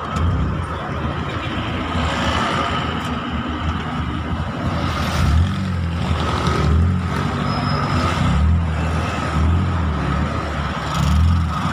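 Vehicle engine running while driving along a road, its low note shifting up and down with the throttle, over road and wind noise and a faint steady whine.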